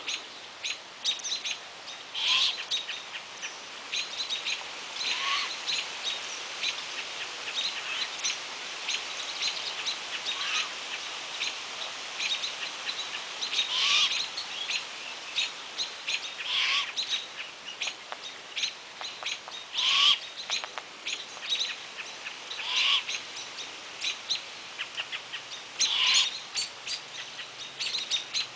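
Great horned owlet giving raspy, hissing begging screeches about every three seconds, with other small birds chirping in between.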